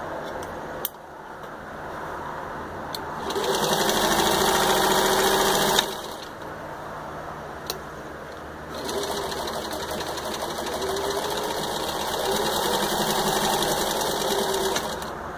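A 1952 Singer 15-91 sewing machine, with its gear-driven potted motor, stitching through six layers of thin denim in two runs. It gathers speed and runs fast until it stops about six seconds in, then runs again from about nine seconds until near the end. There is a sharp click about a second in and another shortly before the second run.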